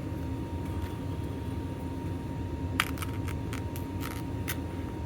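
A few sharp clicks and taps from handling RC crawler tires with 3D-printed TPU foam-replacement inserts, over a steady low background hum.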